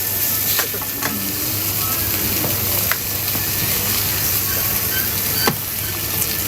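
Food sizzling steadily as it fries in hot oil at a street food stall, with a few sharp clicks of a utensil against the cooking surface.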